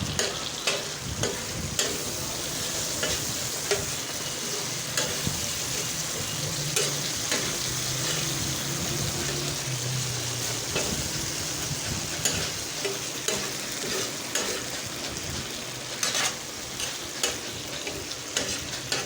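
Chicken with tomato paste sizzling in hot ghee while it is stirred, a spatula knocking and scraping against the pan about once a second, more often near the end.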